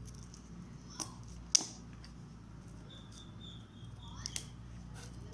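A phone's cardboard retail box being handled: a few sharp taps and clicks over a low steady hum.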